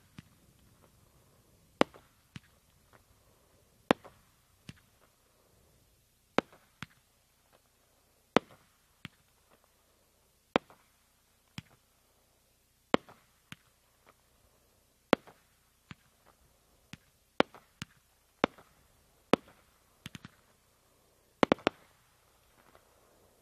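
Consumer firework cake firing aerial shots in sequence: a sharp bang about every one to two seconds, with smaller pops between. Near the end several shots come in a quick cluster.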